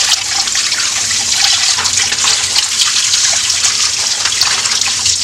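Kitchen faucet running a steady stream of water onto soaked chickpeas in a stainless steel mesh colander, with hands turning the chickpeas under the stream. Faint clicks sound through the splashing.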